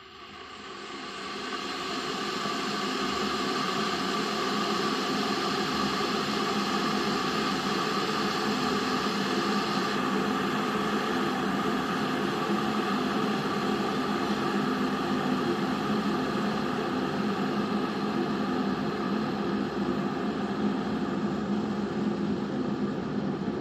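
Liberton electric kettle heating water: a steady rushing hiss that swells over the first two seconds, then holds.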